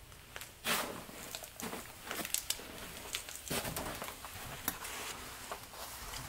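Footsteps treading over quilted duvets laid across a corridor floor, several steps each giving a soft rustle of fabric, the last ones landing on carpet.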